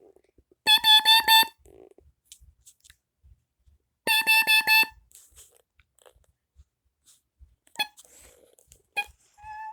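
Kidde KN-COB-DP-H carbon monoxide alarm sounding on test: two groups of four quick, loud beeps about three seconds apart, the four-beep pattern that signals carbon monoxide. A couple of clicks and a short beep follow near the end.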